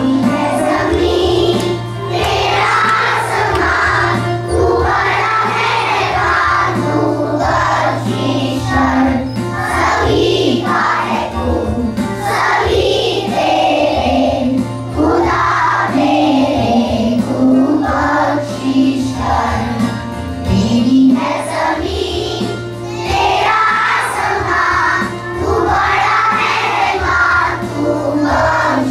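A group of young children singing a prayer together in unison, with a steady low drone beneath the voices.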